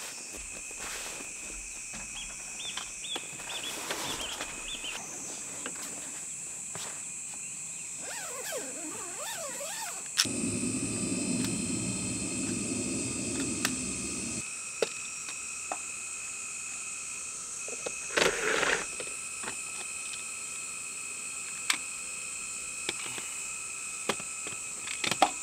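Summer insects droning steadily at a high pitch, with scattered sharp clicks and knocks. About ten seconds in, a few seconds of louder low rustling noise.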